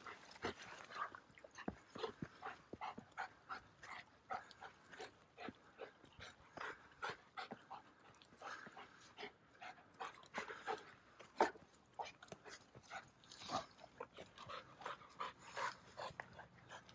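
A dog panting on the walk, over a steady run of short, irregular crunching steps on the trail, one sharper knock about eleven seconds in.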